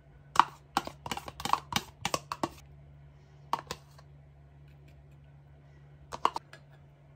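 A spoon clicking and knocking against a Greek yogurt tub and the bowl as the thick yogurt is scraped out: a quick run of sharp clicks in the first two and a half seconds, two more about three and a half seconds in, and a short cluster of three near the end.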